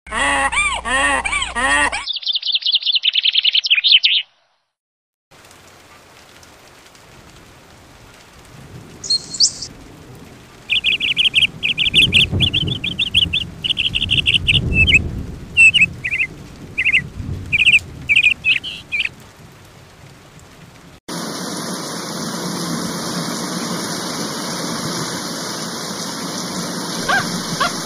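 Birds chirping in short, repeated trills over a faint background, after a brief wobbling pitched sound effect at the start. About three-quarters of the way through, this cuts abruptly to a steady rushing noise of running water.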